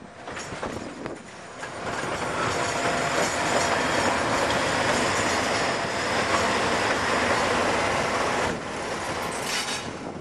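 Electric locomotive passing close by, its wheels running on the rails with a faint wheel squeal. The noise swells about two seconds in, holds steady, then falls away at about eight and a half seconds.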